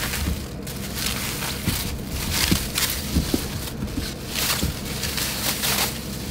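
Thin plastic produce bag crinkling and rustling as zucchini are pulled out of it, with a few soft knocks as they are set down on a plastic cutting board.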